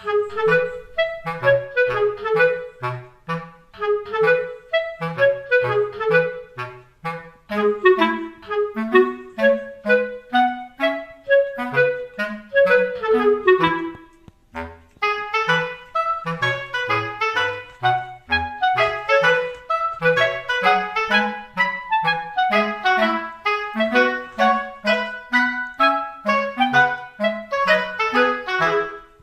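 Light background music: a clarinet-like woodwind melody in short, bouncy notes over a plucked-sounding bass line, with a brief break about halfway through.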